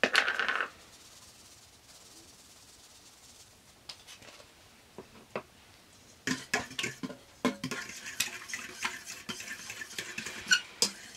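A fork whisking omelet mix of eggs, egg whites and almond milk in a stainless steel mixing bowl, a quick run of clinks and scrapes of metal on metal that starts a little past halfway. A short clatter comes at the very start.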